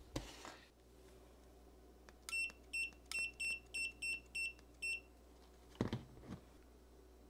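TESMEN TCM-300A clamp meter beeping, a run of about nine short, high beeps at roughly three a second as its buttons are pressed to step it into capacitance mode. A couple of light plastic clicks of handling follow.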